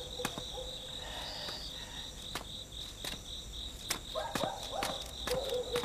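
Crickets chirping steadily in a fast, even pulse, with a few scattered sharp clicks such as footsteps.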